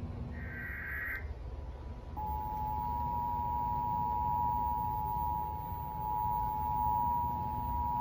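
Emergency Alert System broadcast coming from a TV's speaker. First a brief warbling burst of the digital data header (SAME code), then about two seconds in the EAS two-tone attention signal starts: two steady high tones sounding together and held without change.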